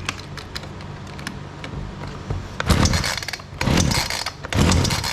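Ryobi two-stroke chainsaw being pull-started on choke: after a few light clicks, three hard pulls of the recoil starter about a second apart, the engine turning over without starting.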